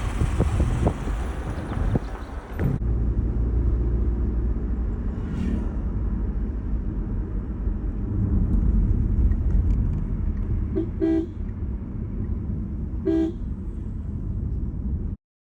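Road noise of a car driving, a steady low rumble, with a loud hiss over the first few seconds that stops abruptly. A car horn gives two short toots about two seconds apart, near the end.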